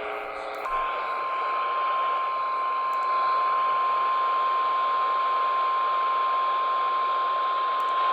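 Emergency alert warning alarm tone, the single steady 1050 Hz attention tone used by NOAA Weather Radio, received over a radio. It comes on just under a second in and holds without wavering over steady radio hiss. It signals that a tornado warning is about to be read.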